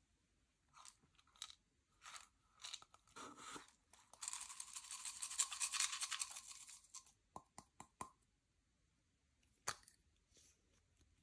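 Slime being mixed and squeezed by hand: sticky clicks and small pops, with a dense run of crackling from about four to seven seconds in.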